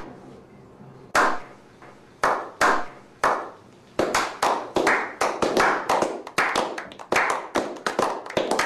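A small group of men giving a slow clap: a few single claps spaced about a second apart, then from about four seconds in the clapping picks up into quicker, overlapping applause.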